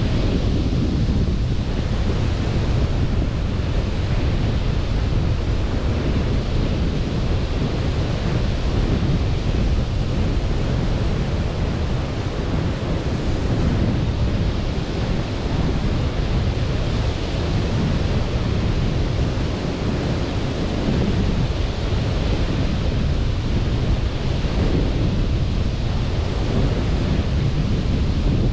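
Sea surf washing steadily onto a beach, rising and falling every few seconds, with wind rumbling on the microphone.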